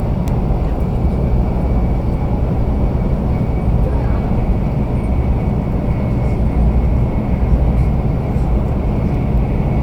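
Steady rumble of a JR 500 series Shinkansen train running, heard inside the passenger cabin, with a faint steady high tone above it.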